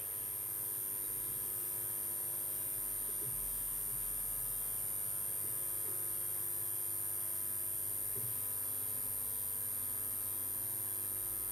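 Steady electrical hum with a thin, high-pitched whine, with no voice. A few faint soft sounds come about three, six and eight seconds in.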